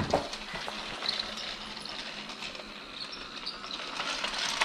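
Battery-powered Trackmaster toy engine (Boco) running along plastic track, quiet and steady with small clicks, after a thump at the start.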